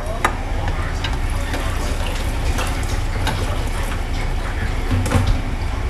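Soup bubbling at a simmer in a steel stockpot, with a ladle stirring through it and knocking against the pot about five seconds in.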